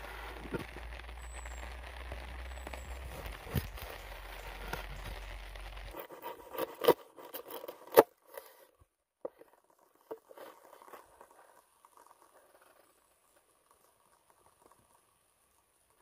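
Campfire crackling with a steady hiss and many small pops for about six seconds, cut off abruptly. A few sharp knocks and some faint clatter follow, then near silence.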